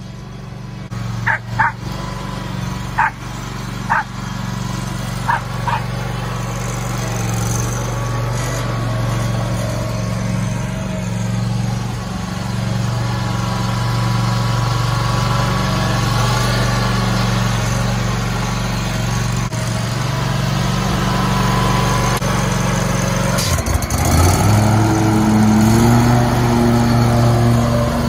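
Wright Stander X stand-on mower's Kawasaki V-twin engine running steadily as the mower drives across the lawn; about 24 seconds in, its note dips and then rises to a higher, louder pitch. A dog barks about half a dozen times during the first six seconds.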